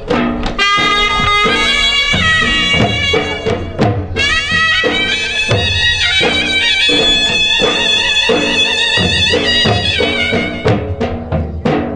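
Gujarati folk ras dance music played loud through a sound system: a high, wavering melody line over regular drum beats. Near the end the melody drops out and only the drums carry on.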